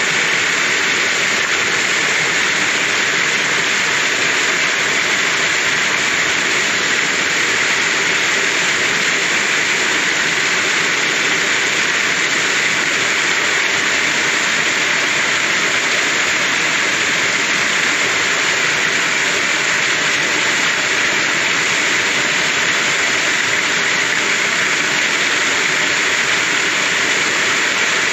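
Waterfall pouring over rock and splashing onto boulders in a shallow pool: a steady, even rush of falling water that does not change.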